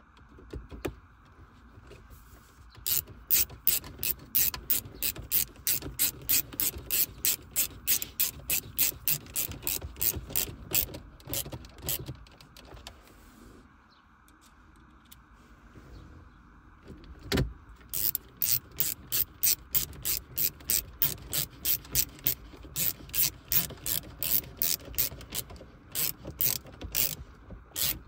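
Ratchet clicking in a quick, steady rhythm of about three to four clicks a second, in two long runs. Between the runs there is a pause with a single knock.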